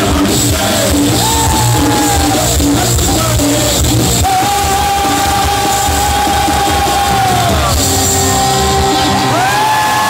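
Live rock band music: drum kit, electric guitars, bass and tabla playing together under singing. The singer holds one long steady note through the middle, and further rising notes come in near the end.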